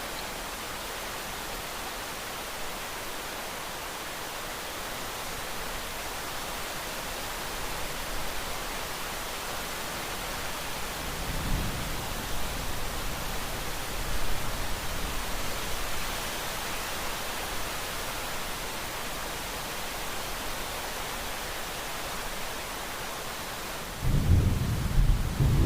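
Steady rain hiss with thunder. A low roll of thunder swells from about halfway through, and a louder, closer rumble of thunder breaks in near the end.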